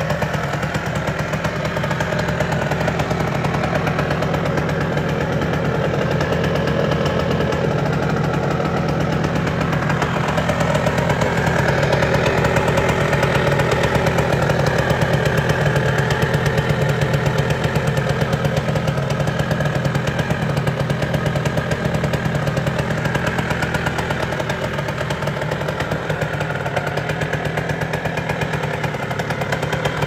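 Aprilia Red Rose Classic 125 motorcycle engine idling steadily, a fast even pulse from its chrome exhaust, the level rising a little partway through.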